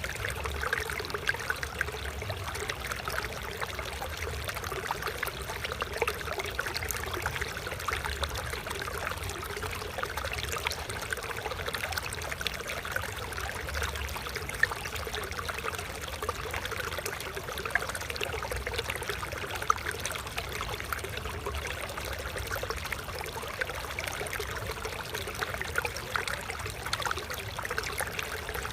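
Flowing stream water trickling and splashing steadily, with no pause.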